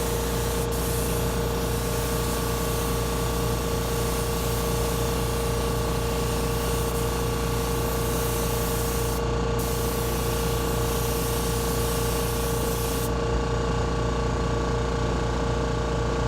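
Automotive paint spray gun hissing as a coat of paint goes onto a car bumper, over the steady hum of a motor running. The spray hiss breaks off briefly about nine seconds in and stops about three quarters of the way through, while the hum keeps going.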